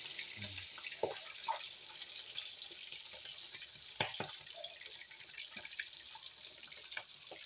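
Chicken deep-frying in hot cooking oil: a steady sizzle full of small crackles, with a few sharper pops of spattering oil.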